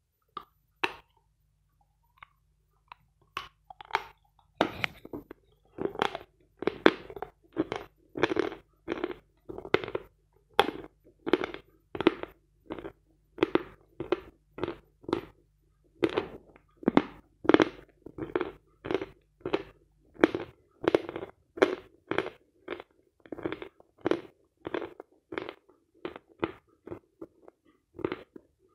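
Someone bites a piece off a stick of hard edible chalk with a sharp crack about a second in, then chews it steadily close to the microphone: crisp crunches about twice a second.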